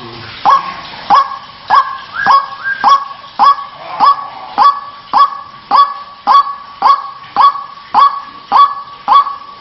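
White-breasted waterhen's "kruak" call repeated in a steady series, nearly two calls a second, each a sharp upward-swooping note. It is a lure call for drawing waterhens out of hiding.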